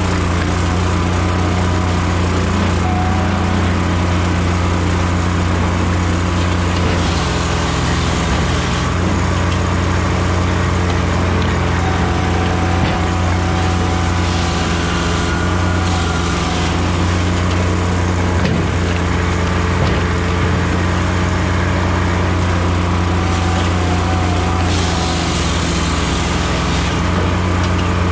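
Firewood processor's engine running steadily, driving the hydraulics. The high hiss of the chain saw bar cutting through pine logs swells for a couple of seconds at a time, three times.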